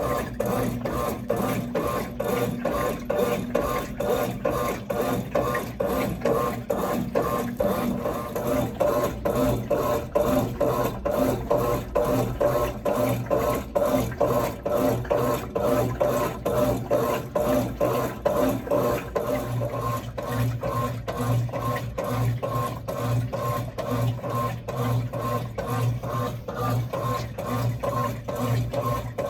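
A 1996 Brastemp Clean 5 kg washing machine (BWR22A) running through its wash: a steady motor hum under a rhythmic rasping swish as the agitator works the load back and forth.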